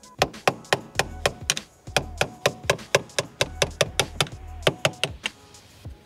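A small hammer tapping a screwdriver used as a drift, knocking the pivot pin out of a factory manual shifter assembly. It is a quick run of sharp metallic taps, about four or five a second, that stops about five seconds in.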